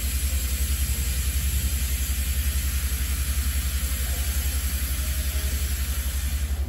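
Loud steady hiss of Type 9600 locomotive No. 49671 venting, the locomotive running on compressed air; the hiss cuts off suddenly at the end. A low rapid throb runs underneath.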